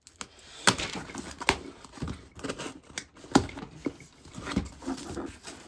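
Smoke-alarm packaging being opened and handled by hand: irregular rustling and scraping with several sharp clicks, the loudest a little over three seconds in.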